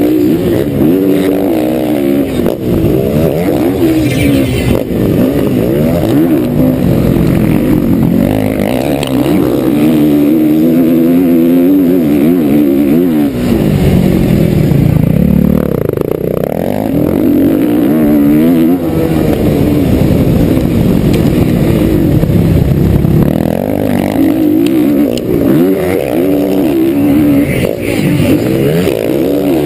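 Motocross bike engine heard from the bike itself, revving hard and falling away again and again as the rider works the throttle and gears around the track. About halfway through, the revs drop low and then climb back up.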